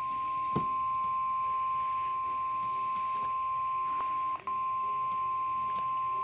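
NOAA Weather Radio's 1050 Hz warning alarm tone: a single steady high beep, held without change, with a brief dropout a little past four seconds in. It is the attention signal that opens the tornado watch alert.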